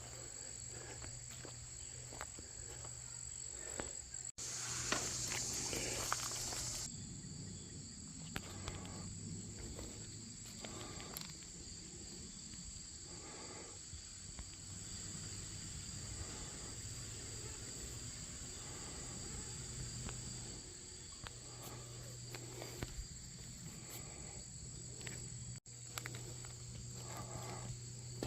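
Steady late-summer chorus of crickets and other insects, with scattered crunching footsteps on rough ground. A rush of noise lasts a couple of seconds about four seconds in.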